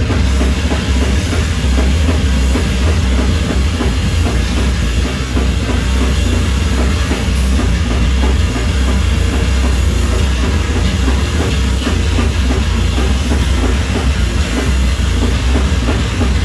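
Live noise rock from a bass-and-drums duo: heavily distorted electric bass guitar over fast, dense drumming, loud and unbroken, with a heavy low end.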